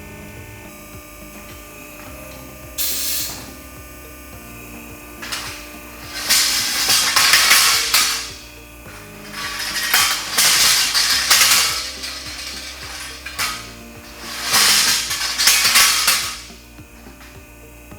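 Doucet clamp carrier running: a steady machine hum with repeated harsh, rattling mechanical bursts of one to two seconds each, a short one about three seconds in and longer ones after.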